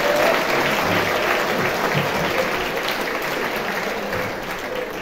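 Theatre audience applauding, the applause dying away toward the end.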